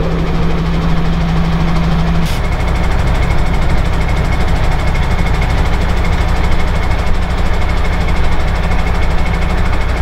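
Large diesel engine idling steadily. A higher steady hum over it cuts off with a click about two seconds in.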